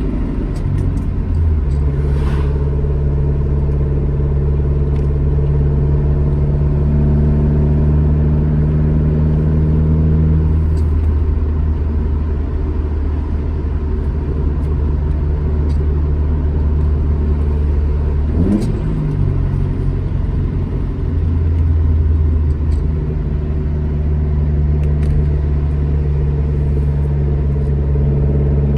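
Alfa Romeo GT Junior's twin-cam four-cylinder engine pulling steadily on the road. The note holds at a steady pitch for long stretches and shifts a few times, with a short rising rev about two-thirds of the way through before it settles again.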